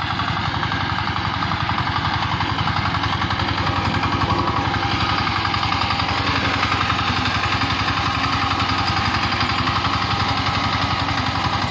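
Engine of a walk-behind tractor with a front sickle-bar mower, running steadily while it mows tall grass.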